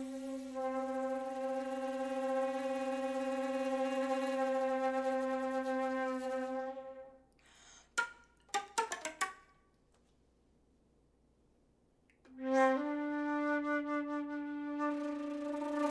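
Solo concert flute holding a long, low note that fades away. A quick cluster of sharp, percussive clicks follows, then about three seconds of silence. A new low note then enters, steps up slightly and is held.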